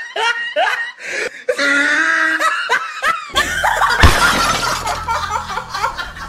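Laughter for about the first three seconds, as a comedy laugh-track effect. Then a dense, noisy comic sound effect with a steady low drone, and a heavy thud about four seconds in as the woman hits the ground.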